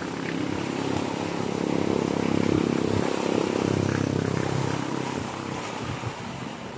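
A motor engine passing, building to its loudest a little before halfway and then fading, over wind and lapping water.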